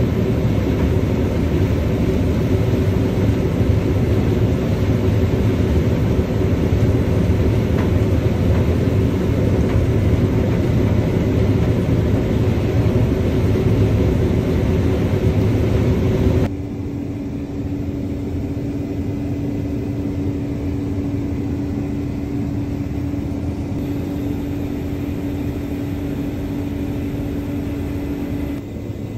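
Combine harvester running steadily as it harvests corn, heard from inside the cab: engine and threshing noise with a constant hum. About sixteen seconds in it changes abruptly to a quieter, steady machine hum with one held tone, as the unloading auger pours shelled corn.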